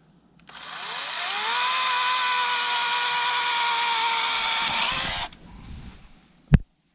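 The LYNXX 40V cordless chainsaw's electric motor spins up with a rising whine, runs steadily at a high pitch for about five seconds, then cuts off abruptly. A single sharp knock follows near the end.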